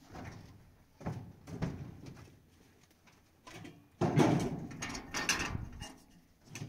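Thumps, knocks and scraping of a man climbing into the steel, railed cargo bed of a pickup truck, with the loudest bangs about four seconds in.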